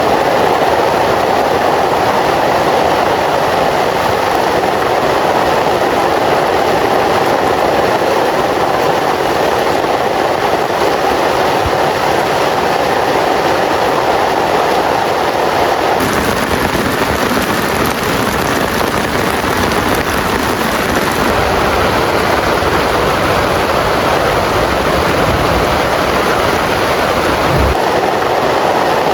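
Heavy rain pouring steadily, a loud, even hiss; about halfway through, its character shifts slightly, with more low rumble.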